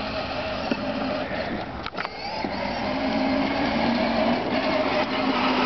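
Children's Power Wheels battery-powered ride-on ATV driving across grass, its electric motors and gearbox whining steadily. It gets louder from about halfway through as it comes closer.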